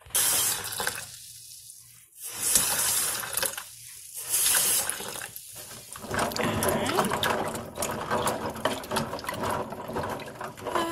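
Water sloshing and splashing in a plastic container as a hand stirs and rubs raw jackfruit seeds in water and vinegar to wash them, the seeds clicking against each other. It comes in short bursts at first, then runs on continuously from about halfway through.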